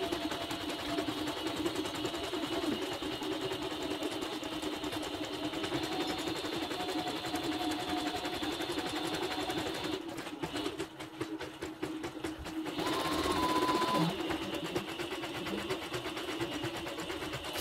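YOKO computerized embroidery machine stitching a design, the needle running at a steady fast rate. About ten seconds in the stitching goes quieter for a couple of seconds, then a steady higher tone sounds for about a second before the stitching carries on.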